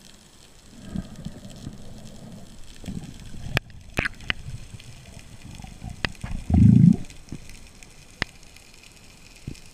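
Underwater sound through an action camera's waterproof housing: a muffled low rumble of moving water, with scattered sharp clicks and one louder low whoosh about two-thirds of the way through.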